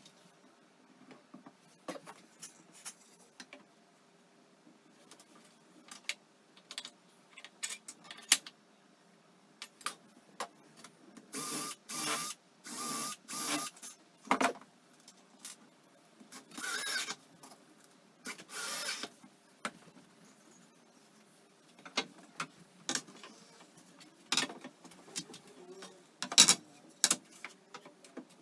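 Cordless drill driving screws into pine pallet slats in several short runs of a second or less, mostly in the middle of the stretch. Wooden boards knock and clatter as they are set down and handled between the runs, with one sharp knock near the end.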